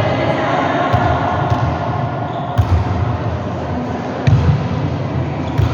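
A volleyball being hit and bouncing: about five dull thuds spread over a few seconds, over a steady background murmur of voices.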